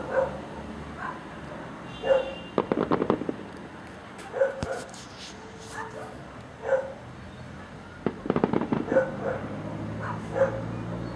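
Aerial fireworks with gold crackling stars, heard from a distance: two spells of dense crackling, about two and a half seconds in and again around eight seconds. A dog barks about every two seconds throughout.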